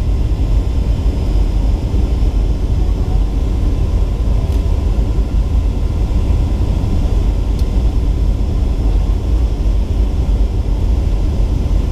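Boeing 757-300 cabin noise, a steady low rumble of its Rolls-Royce RB211-535C engines and the airflow, with two faint ticks about three seconds apart.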